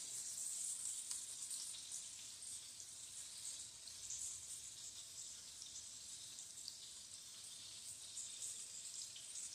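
Beef smash burger patties frying in a pan, a faint steady sizzle with light crackles. The cook feels the pan should be hotter by now.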